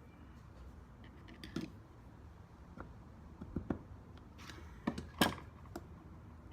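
A screwdriver and C-clip being worked against a rear brake caliper while the clip is pressed into its groove: scattered short clicks and knocks, the loudest about five seconds in.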